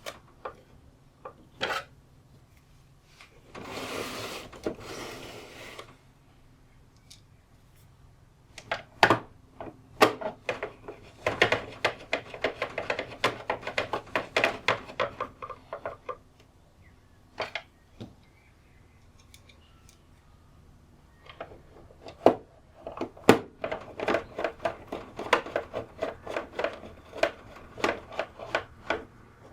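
Screws being driven with a screwdriver into a UPS's plastic case: runs of rapid clicking with rubbing, plus separate sharp knocks. A rougher scraping noise lasts a couple of seconds, about four seconds in.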